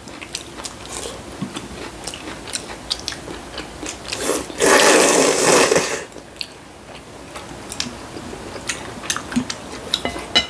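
Mukbang eating sounds: chewing and light clicks of chopsticks on bowls, with one loud slurp of kalguksu noodles lasting about a second and a half, near the middle.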